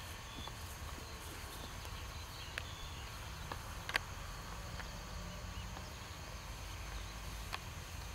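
Quiet outdoor background: a steady low rumble with a few faint, scattered clicks and some faint high chirps.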